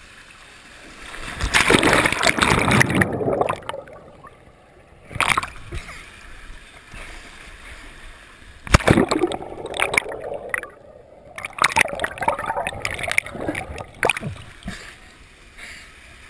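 Water-slide rider splashing down into a pool: a loud rush of water and splash about a second and a half in, then water sloshing and splashing close around a head-mounted GoPro as he swims, with a sharp splash about nine seconds in.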